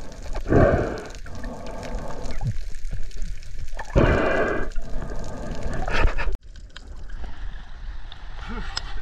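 Muffled water sounds heard through an underwater camera: gurgling and sloshing surges as the fish is handled below the surface. About six seconds in the sound cuts off abruptly to a quieter sound of water at the surface.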